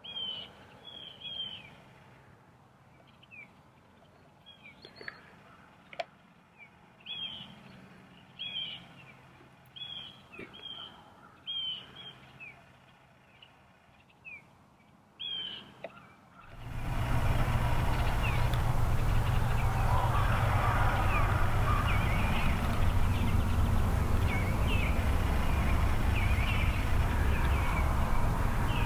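Small birds chirping, short high calls repeated about once a second against a quiet background. About sixteen seconds in, a loud, steady, low rushing noise comes in suddenly and covers everything; the chirps stay faintly audible over it.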